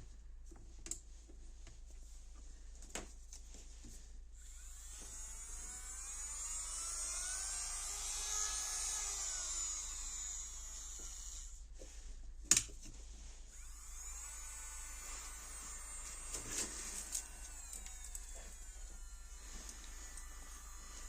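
Nail Master ZS-717 electric nail drill whining at high speed while grinding gel polish off nail tips. Its pitch rises and falls twice. There are a few sharp clicks, the loudest about twelve seconds in.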